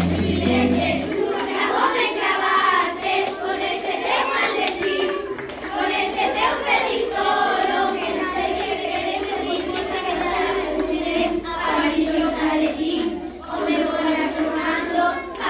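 A group of children singing together without words from a speaker, clapping their hands along.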